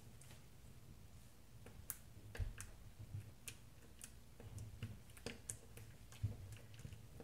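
Fingers poking and pressing a lump of slime, making faint, irregular small clicks and pops, a few each second.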